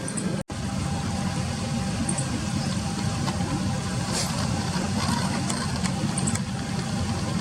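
A steady low engine-like rumble that drops out suddenly for an instant about half a second in. A few faint, very short, high chirps sound over it.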